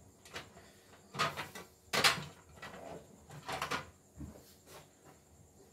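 Irregular knocks and rattles of parts being handled on an opened embroidery machine. There are small clusters about a second in and near three and a half seconds, with the sharpest knock about two seconds in.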